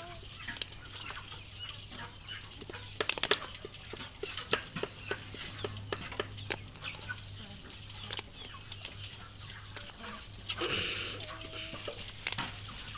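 Irregular clicks and taps of live crabs and small fish moving in a shallow metal basin, their legs and bodies knocking on the metal. A short pitched call, like a hen's cluck, sounds near the end, over a low steady hum.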